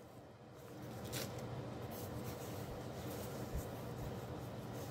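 Faint rubbing and rustling of Title Boxing sand-weighted gloves' fabric as they are turned over in the hands, with a few soft ticks.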